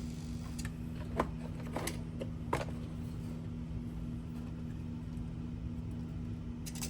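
A few light clicks and taps, as from handling a plastic RC tank model, about one, two and two and a half seconds in, over a steady low hum.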